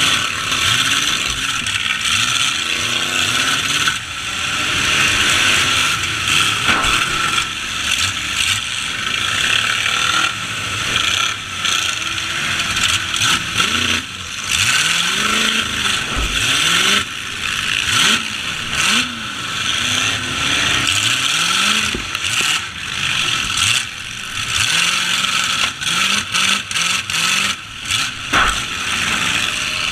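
Demolition derby trucks' engines revving up and down over a steady, noisy din, with scattered sharp knocks.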